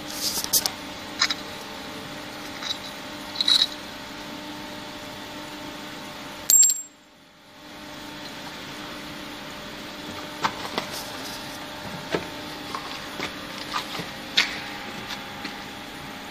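Scattered light metallic clinks of loose metal chips being moved on the cut plate, over the steady hum of the drill press motor. A sharp click about six and a half seconds in is followed by a second of near silence, and then the hum and clinks resume.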